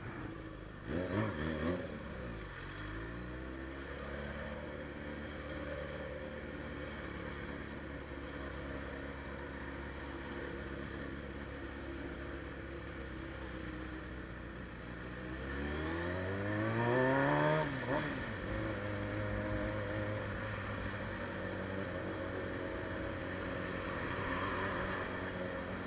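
Suzuki Bandit 600's carbureted inline-four running through a straight-pipe exhaust while riding. It gives a short rev about a second in and then cruises steadily. Near two-thirds of the way through it accelerates, its pitch rising for about two seconds to the loudest point, then drops at a gear change and settles back to steady cruising.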